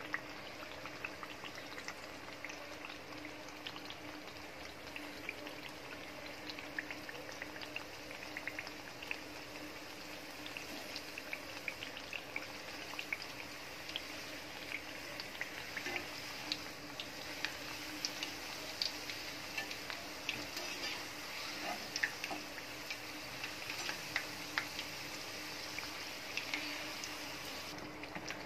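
Kajjikayalu (stuffed dough pastries) deep-frying in hot oil: a steady sizzle with scattered small crackles and pops that grow more frequent in the second half. A faint steady low hum runs underneath.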